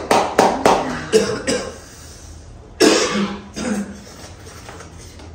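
Hand claps, several in quick succession over the first second and a half, then a single cough about three seconds in.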